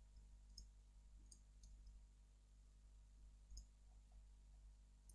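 Near silence with a few faint, scattered clicks from a computer mouse, its scroll wheel among them.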